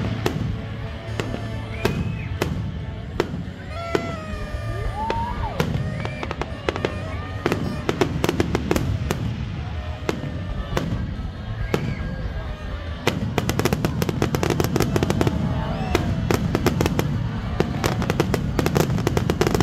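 Aerial fireworks display: scattered bangs at first, then from about thirteen seconds in a rapid, dense crackle of bursts as the show builds towards its finale.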